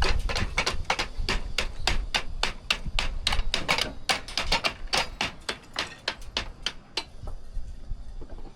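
A rapid, fairly even run of sharp taps, about five a second, that stops about seven seconds in.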